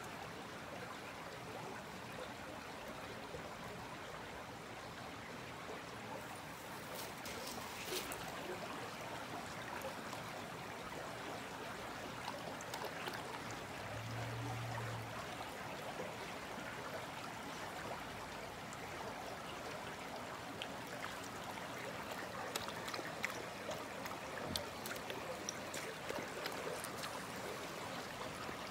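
Shallow mountain brook babbling and trickling over stones, a steady rush of water, with a few scattered faint clicks and a brief low hum about halfway through.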